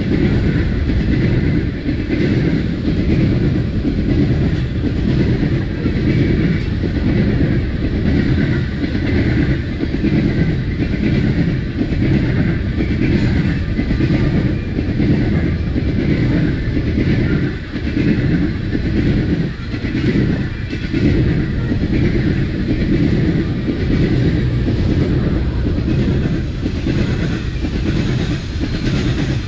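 A freight train rolling past steadily, its cars and wheels running along the rails.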